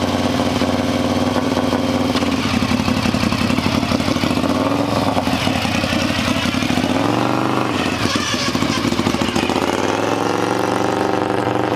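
Engine of a land-speed racing lawnmower running hard at high revs. Its pitch dips and climbs back about two-thirds of the way through, then rises steadily near the end.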